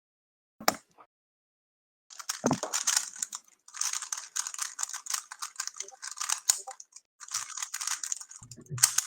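A 3x3 speedcube turned very fast during a solve: a dense run of rapid plastic clicking and clattering from the layer turns, with short breaks about three and a half and seven seconds in. A single click comes just before it.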